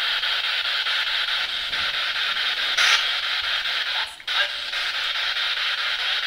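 Spirit box (ghost-hunting radio scanner) sweeping through radio channels: a steady rush of radio static, finely chopped by the sweep, with a brief louder burst about three seconds in and a short dropout about a second later.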